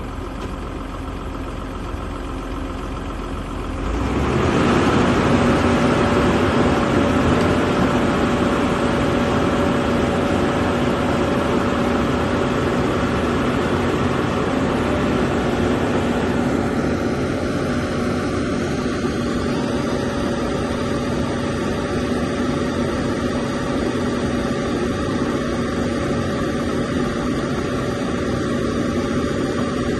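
Excavator's diesel engine running steadily with a constant drone, getting louder about four seconds in as it comes up in revs.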